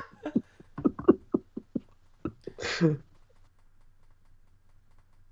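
A person laughing in short breathy pulses, about four a second, ending in one longer voiced laugh near three seconds in. After that only a faint low hum remains.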